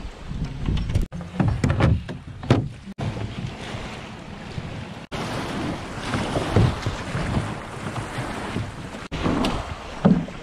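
Small waves washing over a gravel shore around a small plastic boat, with wind on the microphone. In the first few seconds, a few short knocks from gear being handled in the boat's plastic hull. The sound breaks off abruptly several times.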